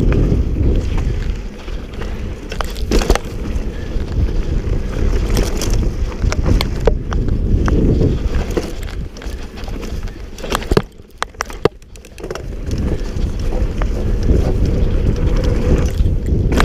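Wind buffeting the microphone of an action camera on a mountain bike descending a dirt trail, with tyre rumble and frequent sharp clatters and knocks from the bike over bumps. The noise drops briefly about two-thirds of the way through.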